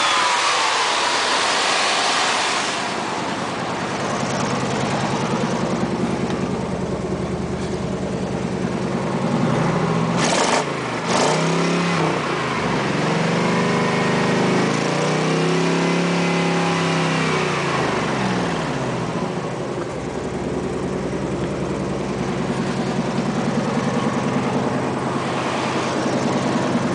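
Chevrolet 350 small-block V8 in a GMC K5 Jimmy running. It settles back to idle at the start, is revved briefly about ten seconds in, with two sharp knocks, then is revved up and back down more slowly, and idles steadily for the rest.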